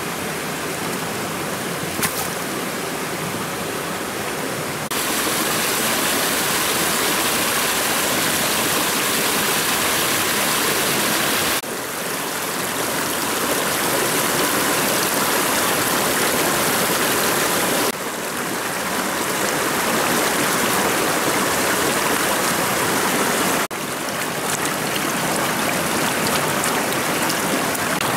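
Water of a small rocky stream rushing steadily. The noise jumps abruptly in level a few times, and there is one sharp knock about two seconds in.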